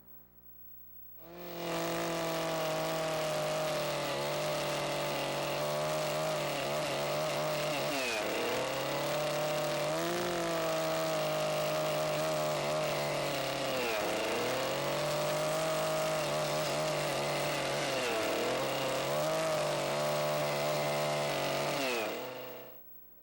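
Chainsaw brought up to high revs about a second in and held there while cutting timber. Its pitch sags four times as the chain bites into the wood, and it stops near the end.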